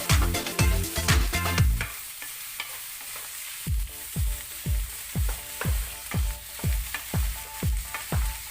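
Food frying in a pan, a steady sizzling hiss, under electronic background music. The music's kick drum beats about twice a second, drops out for nearly two seconds about two seconds in, and then returns.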